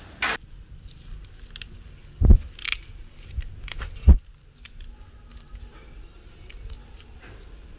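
Lá giang leaves being picked off their vine stems by hand into a plastic basket: light rustling and small snapping clicks, with two dull thumps about two and four seconds in.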